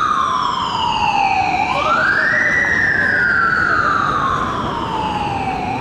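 Norwegian police car's siren sounding a slow wail: each cycle rises quickly, then falls slowly for about three and a half seconds. One quick rise comes about two seconds in, and the next begins near the end.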